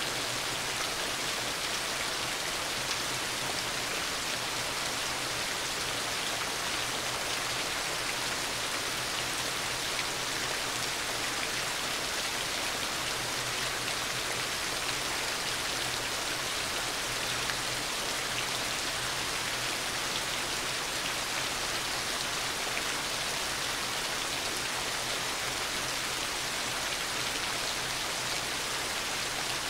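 Heavy rain falling steadily, an even, unbroken hiss of countless drops with no thunder.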